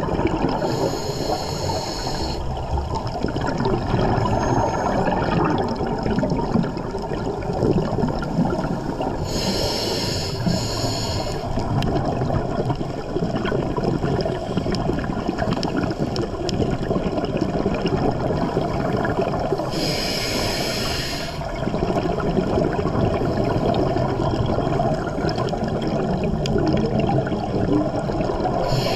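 A scuba diver breathing through a regulator underwater: a short hissing inhalation about every ten seconds, with bubbling and gurgling water in between.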